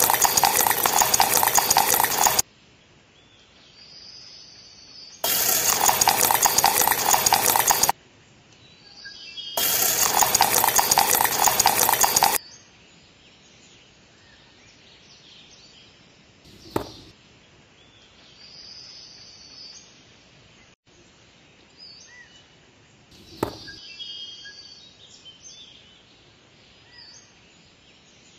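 Wet cement slurry being poured from a small plastic bucket, heard as a dense, wet stirring or sloshing noise in three bursts of two to three seconds each. After that it is quiet, apart from two sharp clicks of small plastic parts being handled.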